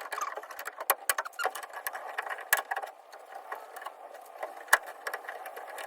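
Quick, irregular metal clicks and rattles of tailgate window-track hardware being handled and slid into place.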